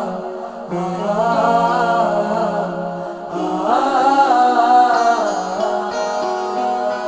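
Background music: a Hindi song with a voice singing long, wavering held notes over a sustained accompaniment.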